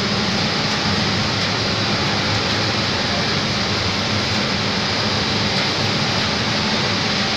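Steady running noise of the machinery in a vapour absorption chiller plant: a low hum under an even rushing noise, unchanging throughout.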